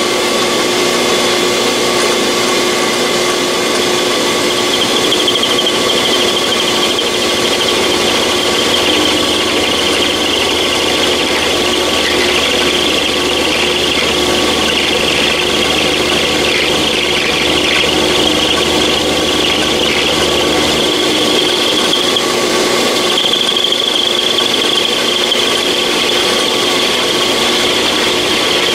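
A small lathe running steadily while the annealed steel punch is turned down to a smaller diameter, with a steady machine hum and a high scraping from the cut. A low hum underneath stops about two-thirds of the way in.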